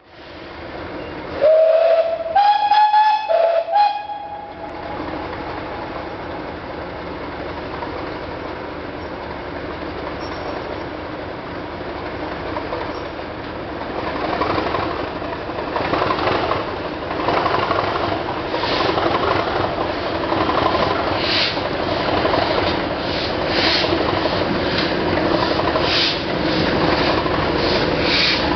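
English Electric Class 37 diesel locomotive sounds its two-tone horn, low then high twice, about two seconds in. Its engine then runs under power, growing louder as the train approaches, with a run of heavier beats in the second half.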